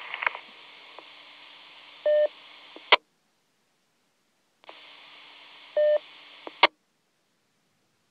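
Two-metre FM repeater traffic heard through a mobile radio's speaker. An open channel hisses, a short repeater courtesy beep sounds about two seconds in, and a squelch tail crash follows as the carrier drops to silence. About a second and a half later the channel opens again with the same hiss, beep and squelch tail.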